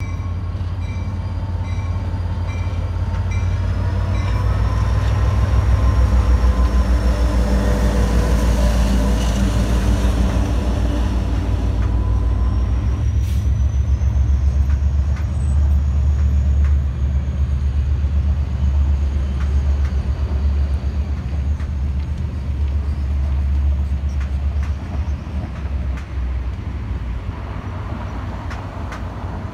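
A diesel locomotive runs past with a loud, low engine rumble, towing unpowered railcars whose wheels click steadily over the rail joints as they roll by. A repeating high beep sounds for the first few seconds.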